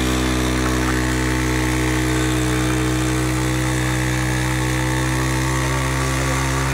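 Small single-cylinder commuter motorcycle engine held at steady high revs, spinning the rear tyre in a burnout. The pitch starts to fall right at the end as the revs come down.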